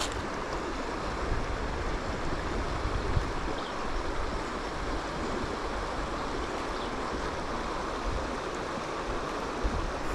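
Steady rush of flowing water in a small, creek-like river.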